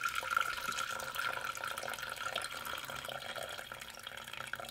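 Hot water pouring in a steady stream from the strainer lid of a Nissin Gigamax instant noodle container into a glass measuring cup, as the noodles are drained.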